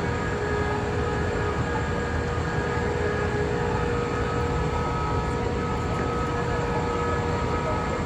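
Heavy machinery running steadily: a low rumble with several steady high whining tones that hold without change.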